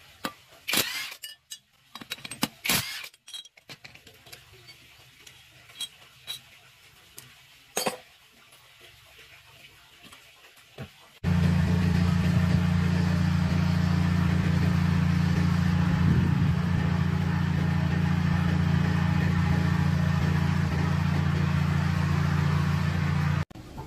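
Scattered light metallic clinks and knocks of tools and parts being handled, then a loud, steady, low machine drone that starts abruptly about eleven seconds in and cuts off abruptly near the end.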